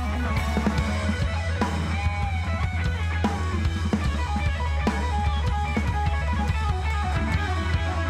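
Instrumental background music with a steady drum beat.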